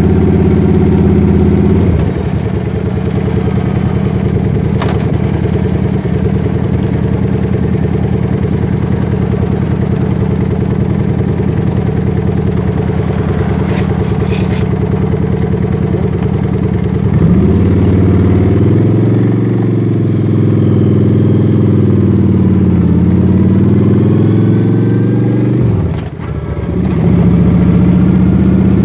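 Motorcycle engine running loud while riding. Past the middle its note falls and then rises in pitch, drops out briefly near the end, and comes back steady.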